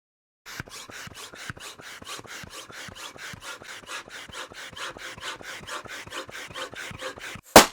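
Balloon pump inflating a balloon with quick rhythmic strokes, about five a second. Near the end the balloon bursts with a single very loud pop.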